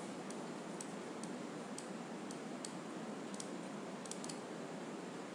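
Scattered faint clicks of a computer mouse, some in quick double-click pairs a little past the middle, over a steady microphone hiss.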